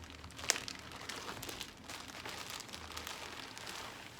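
Wig packaging crinkling and rustling as it is handled, in irregular crackles, with one sharp snap about half a second in.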